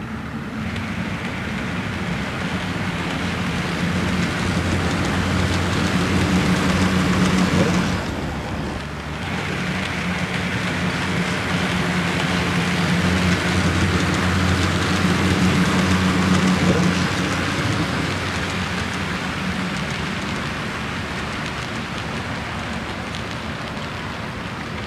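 HO-scale model passenger train running along its track: a steady rolling noise of wheels on rails over a low motor hum. It grows louder as the train passes close, dips briefly about eight seconds in, and eases off near the end.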